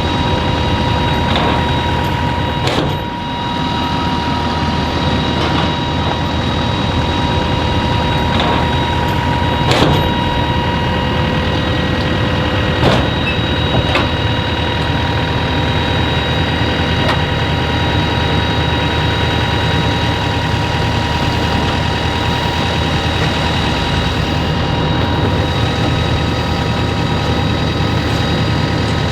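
Kubota M7-172 tractor running steadily while pulling a New Holland FP230 forage harvester chopping corn: a continuous machinery drone with steady high whining tones. A few short knocks come through about 3, 10 and 13 seconds in.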